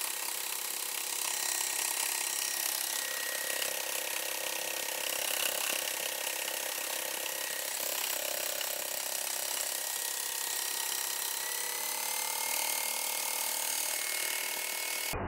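Homemade crankshaft machine with a flywheel, driven by a small electric motor, running steadily: a continuous mechanical clatter from its moving parts, with a thin motor whine that rises slightly about twelve seconds in.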